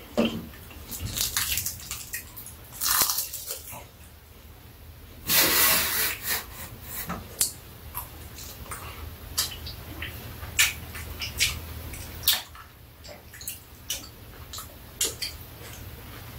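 Two people eating: utensils clicking and tapping against bowls, and chewing. Scattered sharp clicks run throughout, with two longer noisy bursts, the louder one about five seconds in.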